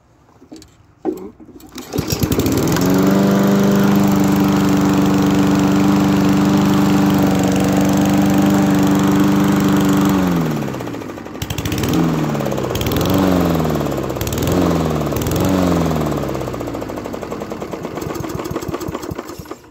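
Push lawn mower's small four-stroke engine starting about two seconds in and running steadily at full speed. About ten seconds in it drops in speed, surges up and down four times, then runs steadily at a lower speed and cuts off suddenly near the end.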